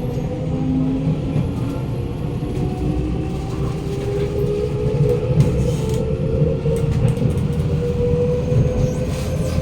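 Traction motors of a Kawasaki Nippon Sharyo C751B metro train whining inside the carriage, several tones rising slowly as the train gathers speed, over a steady rumble of wheels on track with a few clicks.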